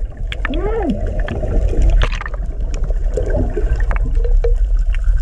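Heard underwater: a steady low rumble of water, with air bubbles gurgling in short rising-and-falling bubbles and scattered sharp clicks.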